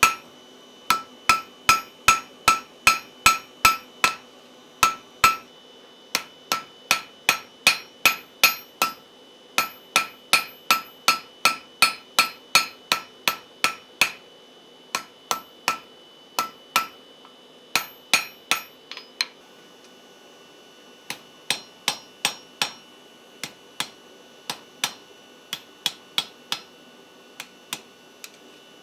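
Blacksmith's hammer striking hot iron on an anvil, in runs of about two to three blows a second, each blow ringing clearly: leaves being forge welded onto an iron rose stem. Past the middle the blows turn lighter and sparser, and the ring changes pitch.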